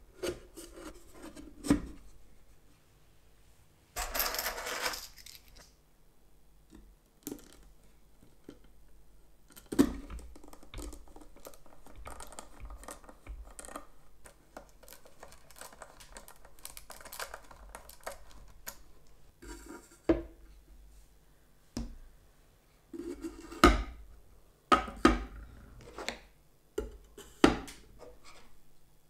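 Small wooden box being handled: a drilled wooden top is set onto it, then screwdrivers are dropped one by one into its holes, giving sharp clicks and knocks of metal shafts and plastic handles against wood. A brief scraping rush comes about four seconds in, and the knocks bunch closer together near the end.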